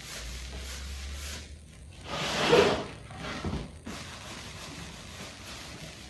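Sanding block rubbed by hand over a pine panel, light sanding strokes scuffing off the store-bought surface, with one louder swish about two and a half seconds in.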